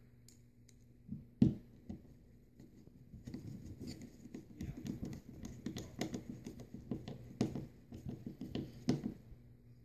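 Hand screwdriver driving the centre screw into the plastic pulley of an Echo SRM 2100 trimmer's recoil starter: a sharp knock about a second and a half in, then several seconds of quick, irregular clicks and scrapes as the screw is turned down.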